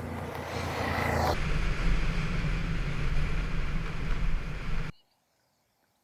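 Suzuki V-Strom 650's V-twin engine running under way, with wind rushing over the microphone. It cuts off suddenly about five seconds in, leaving faint bird chirps.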